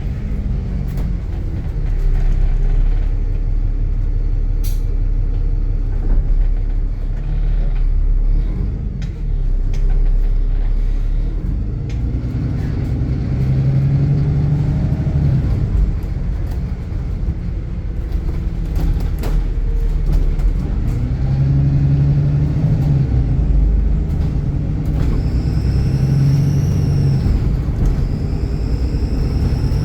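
Rail replacement bus's diesel engine running hard, its low drone shifting in pitch as it pulls. About 25 seconds in, a high turbocharger whistle comes in, rising and falling.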